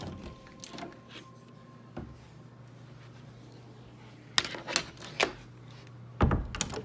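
Interior door with a lever handle being worked: scattered latch clicks and knocks, a few in quick succession past the middle, then the loudest knock and rattle near the end. A faint steady hum runs underneath.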